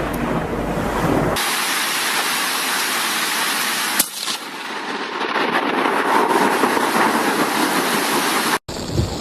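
Thunderstorm noise: a steady hiss of heavy rain and wind. A low rumble in the first second stops abruptly, and a single sharp crack comes about four seconds in.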